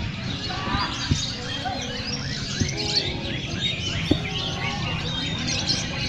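Long-tailed shrikes (cendet) at a bird-singing contest, many quick chirps and whistles overlapping throughout, with two sharp clicks, about a second in and again about four seconds in.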